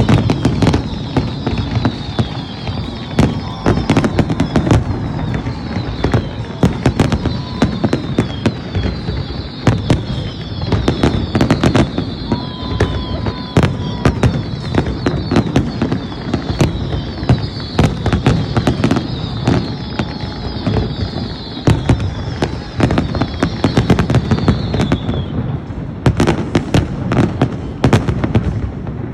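Fireworks display: a rapid, continuous barrage of bangs and booms. Over it runs a stream of short, high, falling whistles that stops a few seconds before the end.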